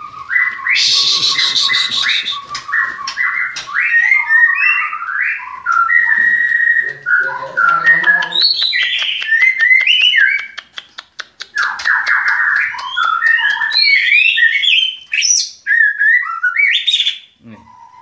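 White-rumped shama singing a varied stream of whistled phrases, with a run of rapid clicking notes about halfway through.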